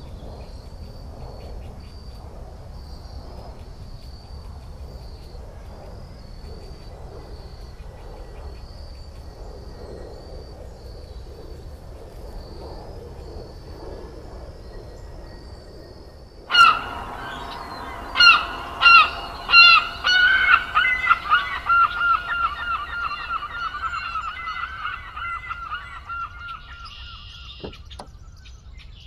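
Crickets chirping in a steady, even pulse. About sixteen seconds in, a bird starts calling loudly: a few separate calls, then a fast run of calls that slowly fades.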